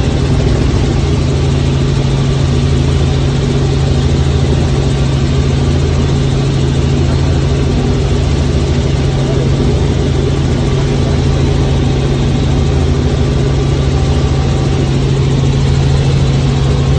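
Helicopter in flight heard from inside the cabin: a loud, steady engine and rotor drone with a strong low hum.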